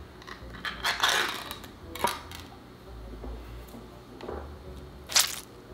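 A metal easy-open can of Chef Boyardee pasta being peeled open by its lid, with a rasping tear about a second in and a sharp click soon after. A few scattered clicks and knocks follow as the open can is handled and tipped over a plastic bowl.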